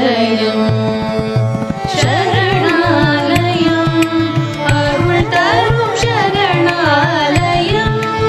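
Carnatic-style devotional music: a steady drone under a melodic line that bends and slides up and down, with a regular drum beat.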